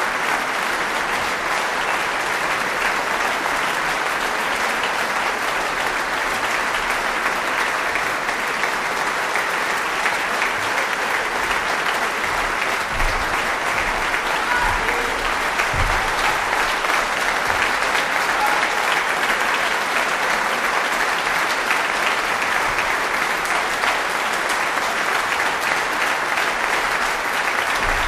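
Audience applauding steadily, a dense unbroken clapping that holds at the same level throughout.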